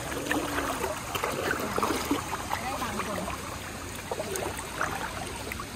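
Steady rush of water in a hot thermal pool, with faint distant voices in the background.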